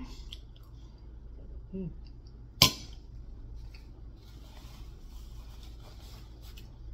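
A metal fork set down on a dinner plate with one sharp clink about two and a half seconds in, followed by soft rustling of a paper napkin wiping the mouth.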